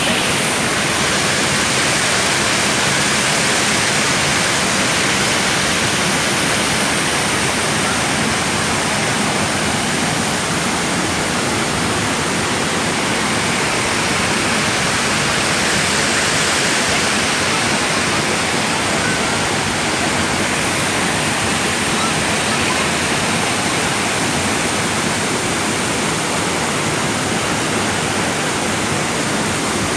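Waterfall pouring, a steady, loud rush of falling water.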